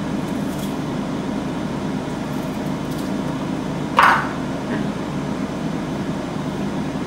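Countertop air fryer running with a steady fan hum. About four seconds in, a kitchen knife is set down on a wooden cutting board with a single short clack.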